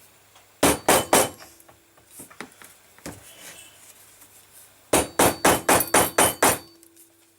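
Hammer blows on a metal setting tool, setting a fastener in a leather sheath: three quick strikes about half a second in, then a fast run of about eight strikes near the end, with a faint metallic ring.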